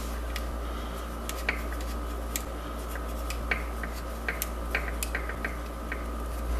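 Small irregular clicks and taps of bamboo skewers being turned and pushed through the holes of a glued MDF frame by hand, over a steady low hum.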